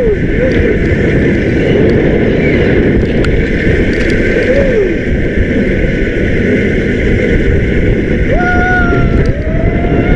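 Loud, steady rush of wind and motion noise on the microphone during a ride, with a few short rising-and-falling voice calls and one held call near the end.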